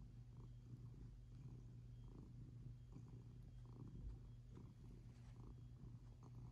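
Domestic cat purring, a faint steady low rumble, while it kneads a soft blanket with its front paws.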